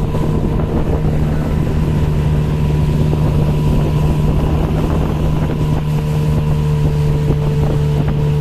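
Outboard motor of a small river boat running at a steady speed under way, one unchanging engine note, with wind buffeting the microphone.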